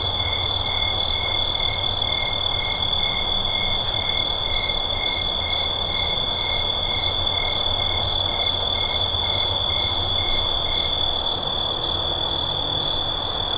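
A chorus of crickets on a summer night: one steady high trill, with other crickets chirping in even rhythms over it (a lower chirp stops about 11 seconds in) and a very high brief chirp about every two seconds. A faint low hum sits beneath.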